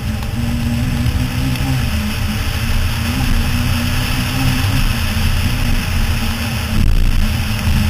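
Toyota Starlet rally car's engine running hard at speed over a gravel track, its note holding fairly steady with small rises and dips, under a steady hiss of tyre and wind noise.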